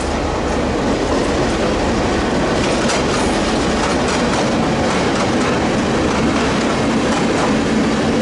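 Two EMD G12 two-stroke diesel locomotives running slowly past with a steady engine rumble, their wheels clicking over the rail joints. Near the end the first freight wagons roll by, clattering.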